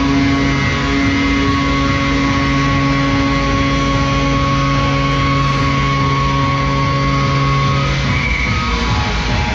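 Rock music with guitar, long held chords that stop about eight seconds in.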